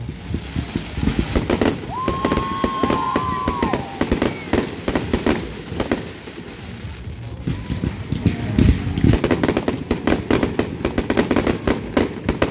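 Aerial fireworks display: shells bursting in rapid, overlapping bangs and crackles. The bursts come thicker and faster in the second half.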